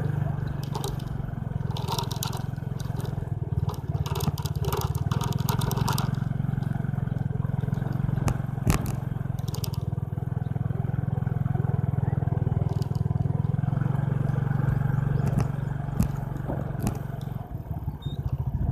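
Bicycle being ridden over rough ground: a steady low rumble with scattered rattles and clicks, thickest in the first few seconds.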